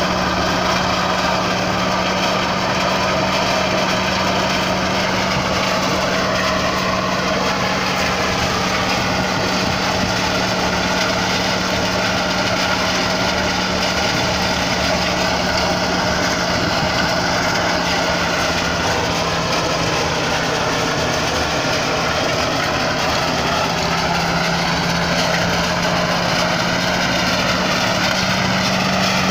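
Corn thresher's small engine running steadily at a constant speed, with an even hum.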